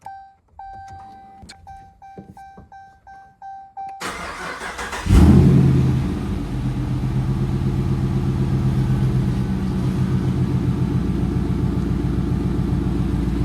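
Dodge Charger R/T's HEMI V8 being started: a repeated in-car warning chime sounds first. About four seconds in, the starter cranks, and a second later the engine catches with a loud flare and settles into a steady idle.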